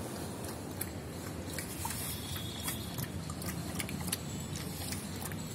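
A dog lapping milk from a small bowl: a run of quick, irregular wet clicks and licks, over a steady low background rumble.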